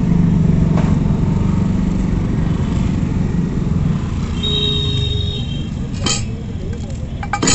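Street traffic noise, with a vehicle engine running close by as a steady low rumble. A short steady high tone sounds about four and a half seconds in, and a few sharp clicks come near the end.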